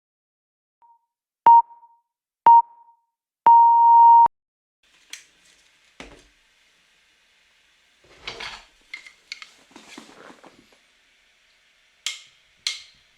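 Electronic timer beeping a countdown: two short beeps a second apart, then a longer beep that marks the start. Faint scattered noises follow.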